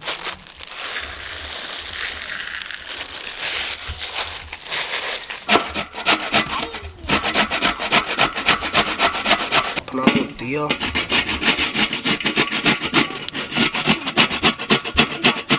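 Carrots being grated on a stainless-steel box grater: rhythmic rasping strokes, about three a second, starting about five seconds in.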